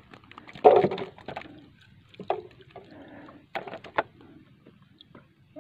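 Water splashing as a small caught fish is dropped into a container at the side of the boat, the loudest sound, about a second in. A few light clicks and knocks follow from handling the hook and line.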